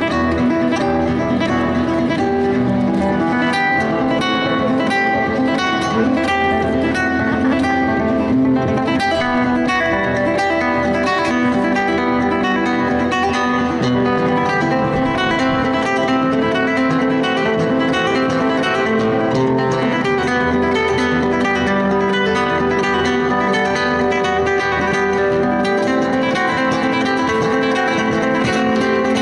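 Background music: acoustic guitar, rapidly plucked and strummed, playing without a break.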